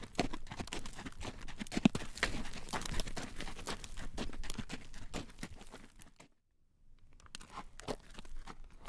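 Horse's hooves clip-clopping on a road as it draws a carriage, a quick run of knocks and crunchy clatter. The sound drops out completely for about half a second some two-thirds of the way through, then the hoofbeats carry on.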